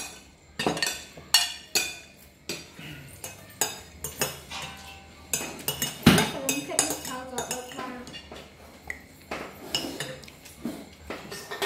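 Metal spoons clinking and scraping against ceramic plates, with plates being handled on a wooden table: a run of sharp clinks at uneven intervals.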